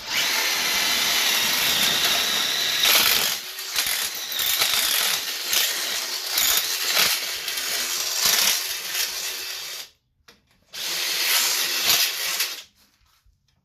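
Cordless drill boring a hole through the welded steel extension bar. It runs about ten seconds, stops briefly, then runs again for about two seconds to finish the hole.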